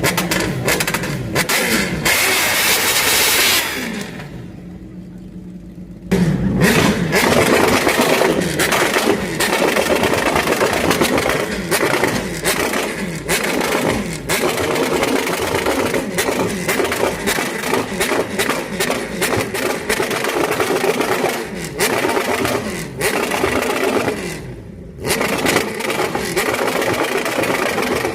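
Many bamboo cannons (meriam buluh) firing in rapid, overlapping succession, a near-continuous barrage of bangs like a battle, with a short lull about four seconds in.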